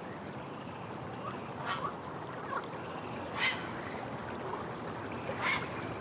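Grey herons calling: three short, harsh croaks about two seconds apart, over a steady background hiss.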